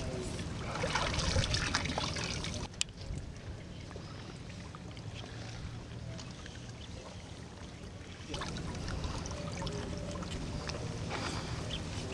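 Water splashing and trickling around a small wooden boat in a lotus lake, with scattered light knocks and a steady low rumble underneath. It is busiest in the first few seconds, drops off, and picks up again about eight seconds in.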